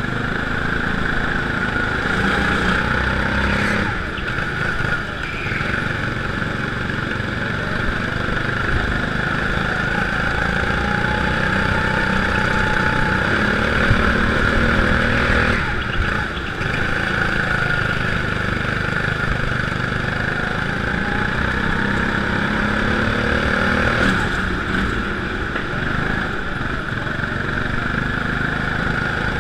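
Go-kart engine running flat out, heard on board the kart, its pitch rising and falling as the kart accelerates and slows through the corners. A few sharp knocks come through, the loudest about two-thirds of the way in.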